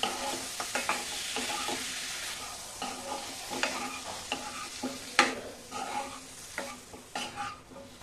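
Marinated chicken pieces sizzling in a hot non-stick pan with no oil added, stirred with a wooden spatula that scrapes and knocks against the pan at irregular moments, sharpest about five seconds in. The sizzle is strongest at first and dies down in the second half.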